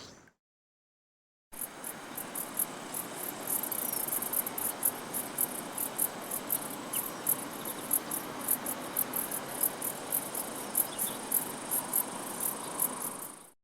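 Crickets chirping in an even rhythm, about three chirps a second, over a steady background hiss. The sound comes in after about a second and a half of silence and fades out at the end.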